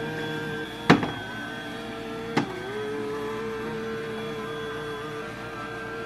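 Jallen Gabor IS28A robotic vacuum cleaner running with a steady motor whine. It gives two sharp knocks, about a second in and again a second and a half later, as it bumps into an obstacle, and the whine dips briefly after the second knock.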